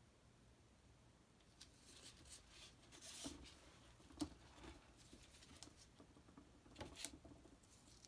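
Faint rustling and scratching with a few light clicks from a stretched canvas being handled and tilted by gloved hands, starting about a second and a half in.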